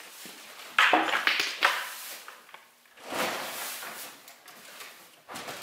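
Red hard-shell equipment cases being handled: a quick cluster of knocks and clatter about a second in, then a rustle of plastic sheeting a couple of seconds later.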